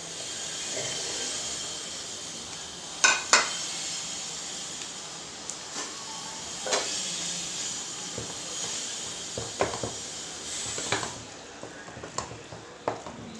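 Hot masala gravy in a granite-coated kadai sizzling steadily as fried mutton pieces go in, with sharp knocks of utensils against the pan; the loudest is a pair about three seconds in. About eleven seconds in the sizzle eases while a wooden spatula stirs the meat through the thick gravy.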